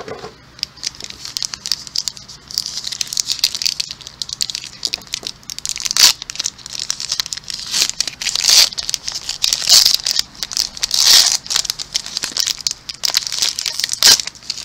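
Foil wrapper of a Disney Lorcana booster pack being crinkled and torn open by hand: continuous crisp crinkling with sharp crackles and several louder rips.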